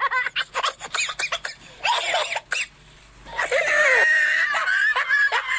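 Laughter in short bursts, breaking off briefly about halfway through, then a high-pitched run of snickering laughter from about three and a half seconds in.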